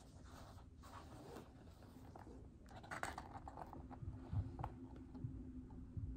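Faint rustling and a few soft knocks of a large hardcover picture book being lifted and held up open, its pages and cover handled.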